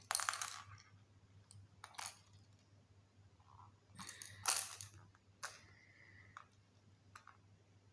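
Small plastic baby rattle clicking and rattling in a baby's hands as she mouths it: several short rattles at uneven intervals, the loudest at the start and about halfway through.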